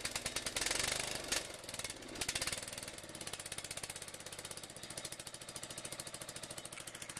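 Exmark mower engine running on choke during a cold start, just after catching: loud for the first couple of seconds, then settling into a steady, even beat.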